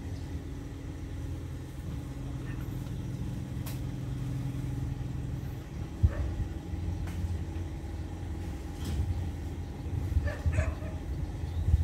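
Diesel engine of a stationary passenger train idling as a steady low rumble with a hum. A sharp knock comes about six seconds in, after which the rumble is rougher and louder.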